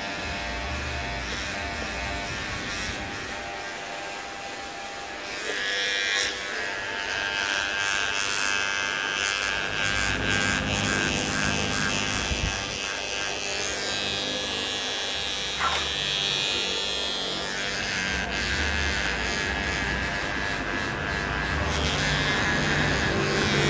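Corded electric hair clippers buzzing steadily as they are run over a head, cutting hair. A brighter hiss joins about five seconds in and comes and goes.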